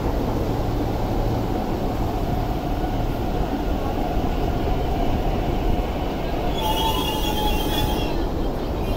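MTR East Rail Line R-train, an electric multiple unit, rumbling steadily as it runs into the station platform. About two-thirds of the way through, a high squeal lasts just over a second as the train slows.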